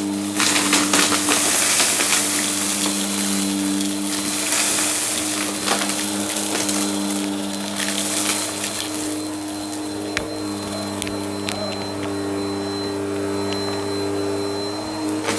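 Bissell upright vacuum cleaner running steadily on a rug, a constant motor hum under a rushing hiss, with scattered clicks and rattles as small bits of debris are sucked up.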